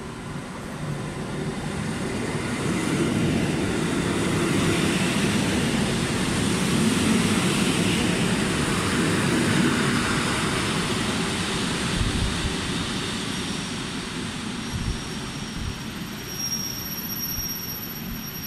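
A train running through the station, its rushing rail noise building to a peak midway and then fading away. A thin high whine comes in near the end, and there are a couple of low thumps.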